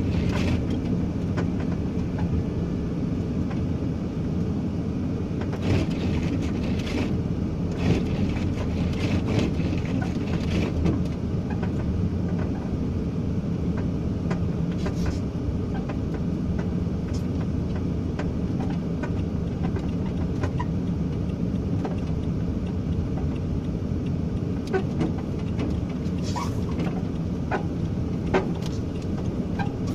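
Vehicle running on a snowy road, heard from inside the cab: a steady engine and tyre rumble with scattered short knocks and rattles.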